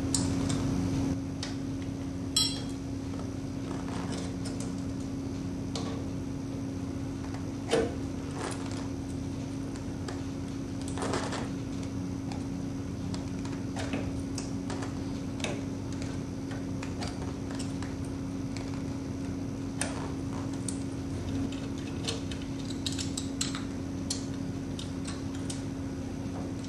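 Scattered small metallic clicks and rattles of hands working the wires and fittings in an electric fan motor's wiring box, over a steady low hum. Two sharper clicks stand out, about two and eight seconds in.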